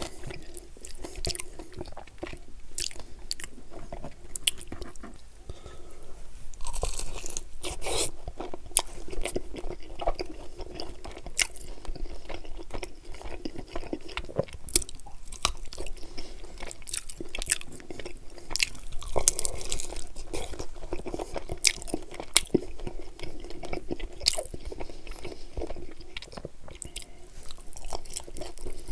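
Close-miked chewing and biting of chicken wings, with crunching and many irregular short clicks throughout.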